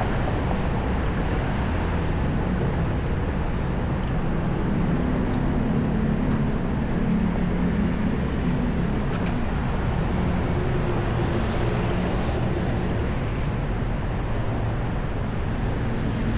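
Steady road traffic noise from vehicle engines on a busy city street, a continuous low drone with no single event standing out.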